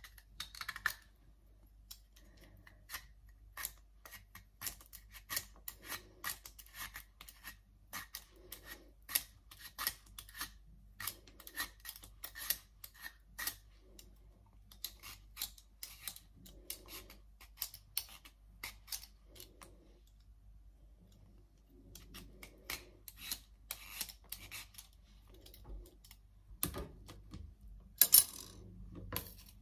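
Raw cassava root being shaved into thin chips on a handheld vegetable slicer: repeated short, crisp strokes across the blade, about one to two a second, with a louder scrape near the end.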